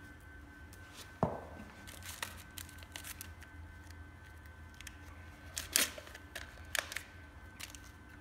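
Scattered light clicks and rustles of gloved hands handling a needle, syringe and their packaging, with one dull thump about a second in. A faint steady high tone runs underneath.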